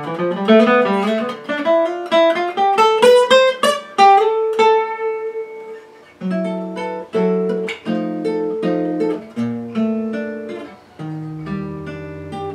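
A 1929 Gibson L5 carved archtop acoustic guitar being played. It starts with a quick run of single notes climbing in pitch and lands on a held note, then plays a string of separate chords. The notes have a super fast attack.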